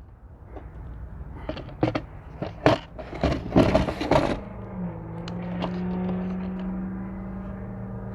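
Sharp clicks, knocks and scraping as the battery's plastic case is handled and opened, then a steady low hum from about halfway through.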